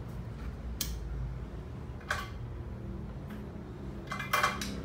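Light clicks and clinks of small tools and items being handled on a repair bench: one about a second in, another about two seconds in, and a quick cluster near the end, over a steady low hum.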